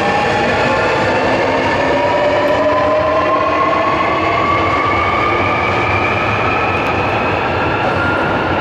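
Subway train pulling out of the platform, the electric whine of its traction motors rising steadily in pitch as it accelerates, over steady wheel and track noise.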